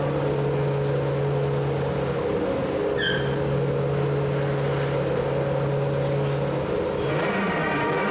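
Toyota TS010's 3.5-litre V10 racing engine running at a steady idle, its pitch holding constant, with a brief high chirp about three seconds in. Near the end a different sound of stacked steady tones takes over, likely music.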